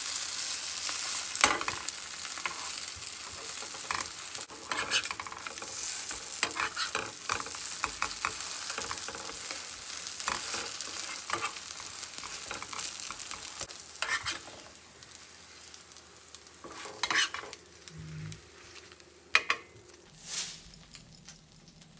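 Tofu and mung-bean pancakes sizzling as they fry in oil in a nonstick pan, with clicks and scrapes of a metal slotted spatula turning them. The sizzling drops away about fourteen seconds in, and a few sharp knocks come near the end.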